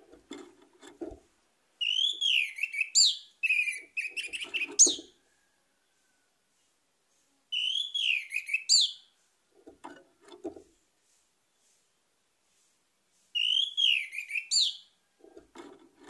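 Orange-headed thrush singing: three song phrases of quick, rising and falling whistled notes, the first the longest. Between phrases come short low rattles that fall as the bird hops about its bamboo cage.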